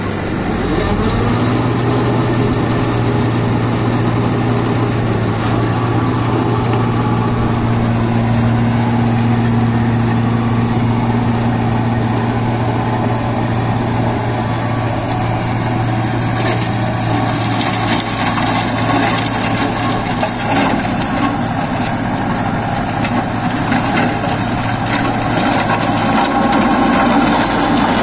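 Four-cylinder Deutz-Fahr Agrolux 80 tractor engine running under PTO load, driving a Maschio Terminator 180 flail shredder, with a steady low drone. Past the halfway point the sound turns harsher and noisier as the shredder's rotor chews through crop waste and throws debris.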